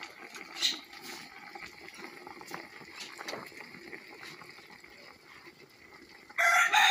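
Faint bubbling of water in a steaming pot of banana-leaf-wrapped tamales, with a few light clicks. Near the end a rooster crows loudly, the loudest sound here.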